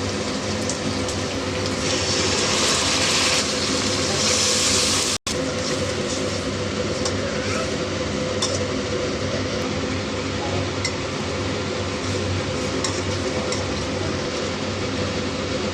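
Chicken frying in hot oil, a steady sizzle that grows louder for a few seconds in the first part and then cuts off abruptly at an edit. After it, a steady hum and hiss carry on with scattered light clinks of utensils.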